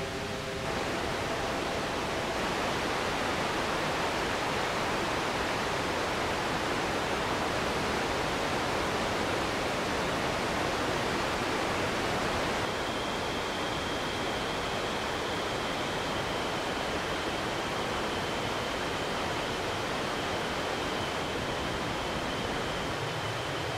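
Synthesized jet-engine imitation from a ZynAddSubFX SUBsynth patch: a steady rushing noise like a jet's roar. A few fading tones die away in the first second, and about halfway through a thin, high whistling tone joins and holds.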